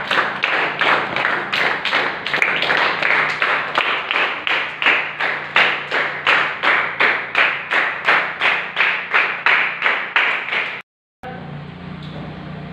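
A group of children clapping in unison to a steady beat, about three claps a second. The clapping stops at a brief dropout about eleven seconds in, and a steady hum with background noise follows.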